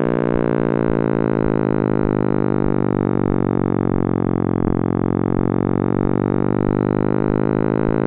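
Synthesized drone of many stacked steady tones: a sonification of the ripples in the cosmic microwave background, presented as the sound of the Big Bang. Faint low ticks run irregularly underneath.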